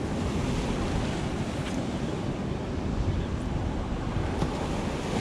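Sea surf washing against a rocky shore, with wind buffeting the microphone: a steady rush of noise.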